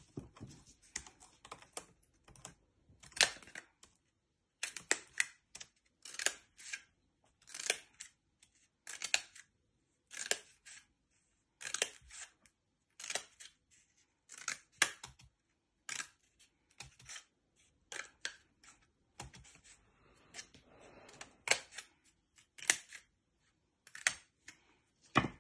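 Scissors snipping into the end of a cardboard toilet paper roll: a short, sharp snip about once a second, over and over.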